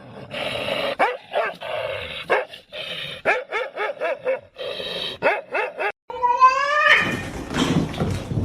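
Dog barking and yipping in quick, repeated yaps for about five and a half seconds. After a brief break comes a single rising call, then a noisy stretch near the end.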